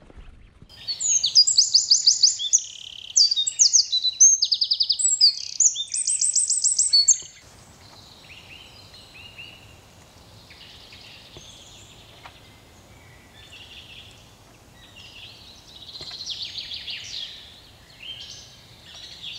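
A songbird singing loudly up close: a rapid run of high trills and varied phrases lasting about six seconds, then breaking off abruptly. Fainter bird calls follow over low, steady background noise.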